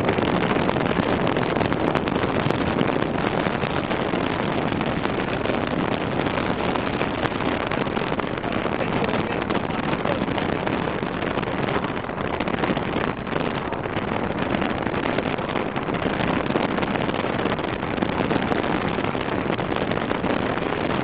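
Loud, steady rushing noise of a streetcar on the move, with wind buffeting the microphone.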